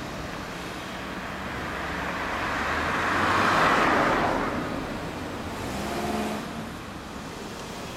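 Street traffic: a car passes close by, loudest about halfway through, then a motor scooter's small engine hums past about six seconds in.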